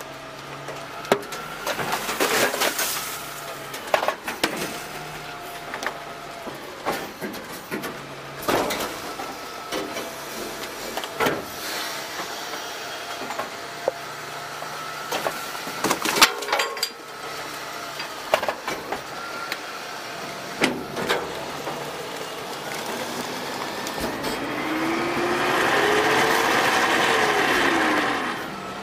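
Automated side-loader garbage truck working a collection route: a steady hydraulic whine under a string of sharp knocks and clangs as the automated arm handles a cart and trash drops into the metal hopper. Near the end the truck's engine revs up, rising and then falling in pitch.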